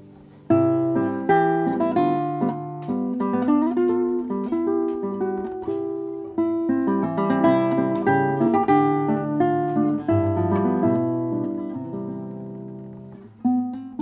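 A 1913 Hermann Hauser I classical guitar played solo fingerstyle: a melody of plucked notes over bass notes, each note ringing and dying away. The first phrase comes in sharply about half a second in, and near the end the notes fade before a new phrase starts.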